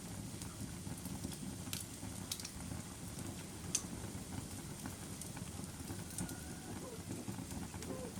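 Wood fire burning in a fireplace: a steady low rumble of flames with a few sharp crackles and pops, the loudest about four seconds in.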